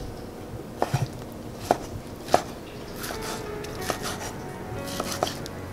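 Chef's knife slicing through a cooked beef steak and striking a wooden cutting board, about seven sharp knocks spaced irregularly.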